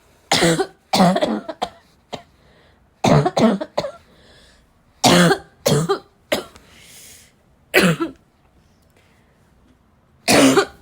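A woman's dry, barking cough in repeated bouts of one to three harsh coughs, about every two seconds, with faint breaths drawn in between.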